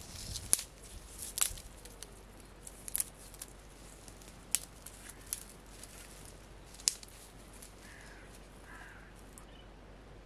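Dry reed stems being snapped by hand into kindling lengths: about six sharp cracks spread over the first seven seconds, then it goes quiet.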